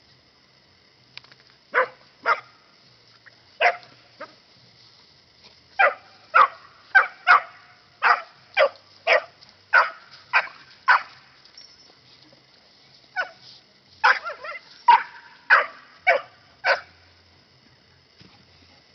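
Pinschers barking at sheep: short, sharp barks in quick runs, about two a second at their busiest, with a pause in the middle.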